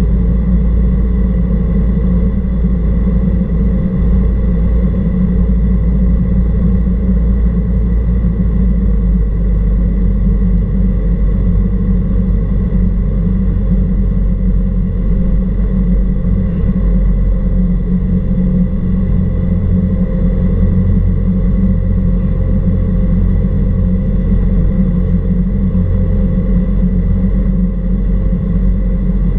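Cessna 172R Skyhawk's four-cylinder Lycoming IO-360 engine and propeller running steadily in cruise flight: a loud, even, deep drone that does not change.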